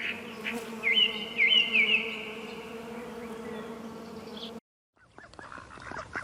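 Bees buzzing in a steady hum, with a few quick high chirps in the first two seconds. The buzzing cuts off about four and a half seconds in, and after a short silence faint clicks begin.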